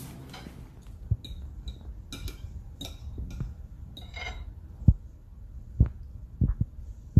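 Metal fork clinking and scraping on a plate in a run of short clicks, then a few louder dull thumps in the second half.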